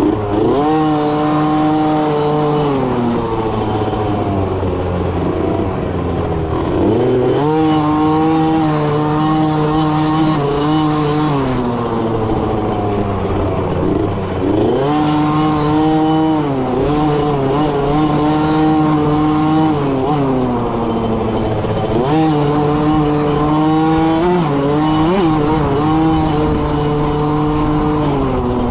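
Youth dirt bike engine heard from on the bike as it is ridden along a trail, its pitch climbing and dropping several times as the throttle is opened and closed.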